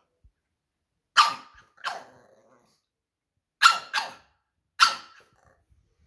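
Pug barking: five short barks, two about a second in, two in quick succession near four seconds, and a last one about five seconds in. They are demand barks from a pug wanting to be let outside.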